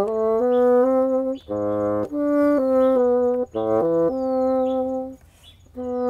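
Solo bassoon playing a slow melody of held, legato notes in its middle register, with a short pause for breath near the end.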